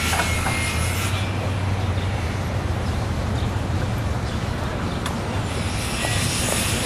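Construction site ambience: machinery running with a steady low engine drone under broad noise, with a few faint knocks about a second in and again around five seconds.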